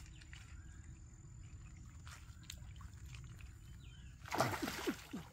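A few faint clicks of footsteps on loose river stones, with faint bird chirps, then about four seconds in a loud burst of splashing as a wooden stick is jabbed into shallow stream water.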